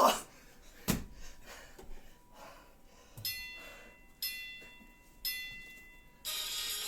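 A single thump, then three bell-like chime tones about a second apart, each ringing and fading. Electronic dance music starts near the end.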